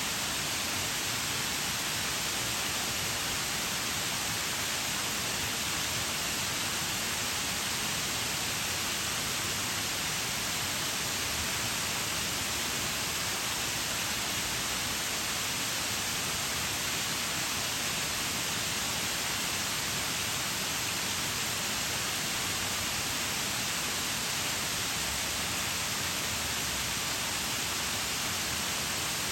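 Waterfall: water falling and splashing in a steady, unbroken hiss, with most of its sound high up.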